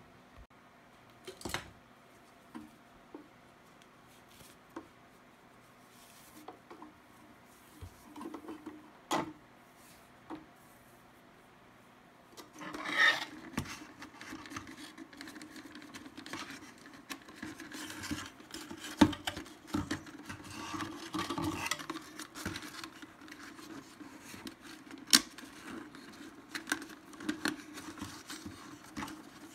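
Hand-handling noise of a clear plastic bottle and wooden skewers being bound together with cord: the plastic rubs and crinkles, with sharp taps and clicks. At first only a few isolated taps, then near-continuous rubbing and crinkling through the second half.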